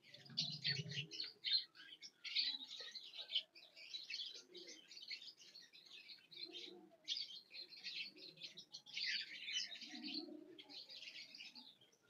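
A flock of budgerigars chirping and chattering, a fairly faint, continuous stream of quick, overlapping high chirps.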